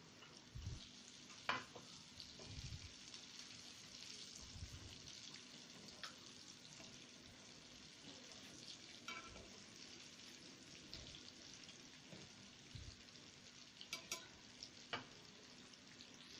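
Chicken kofta sizzling faintly in hot frying oil, a steady hiss, with a few sharp clicks as a fork touches the pan while turning them.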